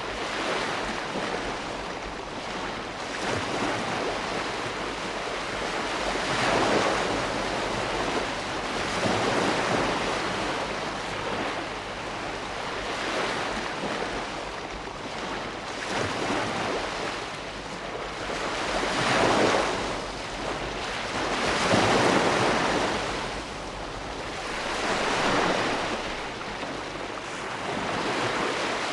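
Ocean waves breaking and washing in, a continuous rush of surf that swells and ebbs every few seconds.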